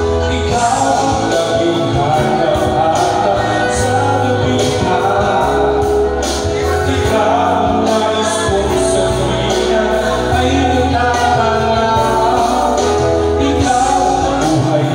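A singer singing into a microphone over backing music with a steady bass line and a regular drum beat.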